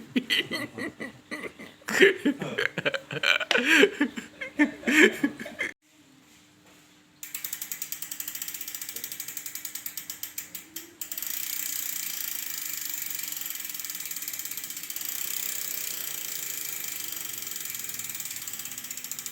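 Bicycle rear hub freewheel clicking rapidly and evenly as the wheel spins freely, with the pawls ratcheting. The clicking starts about seven seconds in and grows louder about eleven seconds in.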